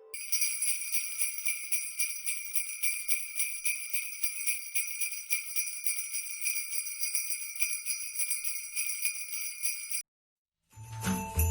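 Sleigh bells jingling in a fast, continuous shake for about ten seconds, then cutting off suddenly. After a brief silence, a Christmas music track with a bass beat and bells starts near the end.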